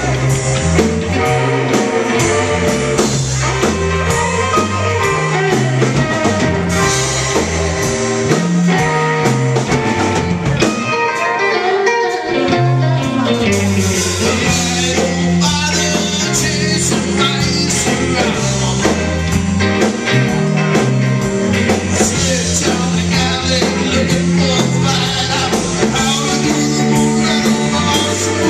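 Live rock band playing: amplified electric guitars over a drum kit, with a singer at the microphone.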